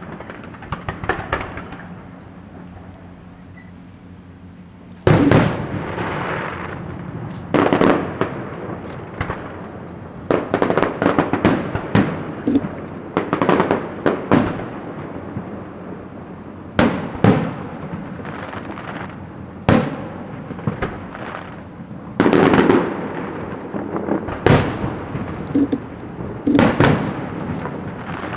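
Fireworks display: a series of loud bursts, each with a short crackling, echoing tail, coming every one to three seconds after about five seconds of fainter crackling.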